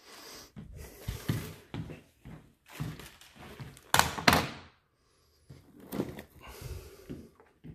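Irregular handling knocks, bumps and rustling as an old thermostat and a boxed new thermostat are picked up and moved about on a wooden floor, with two sharp knocks close together about four seconds in.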